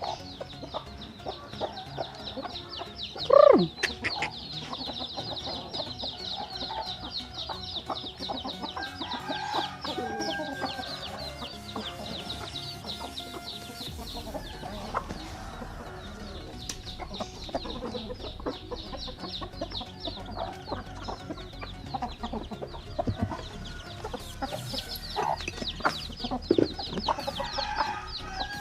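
Domestic chickens clucking while they are fed. About three seconds in comes one loud call that falls in pitch.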